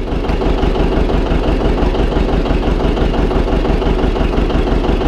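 A farm machine's engine running steadily and loud, as the feed wagon is about to be loaded.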